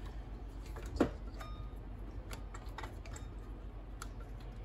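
Scattered light clicks and taps of a rubber serpentine belt and hands brushing against hoses, brackets and pulleys as the belt is fed through the engine bay, with one louder knock about a second in.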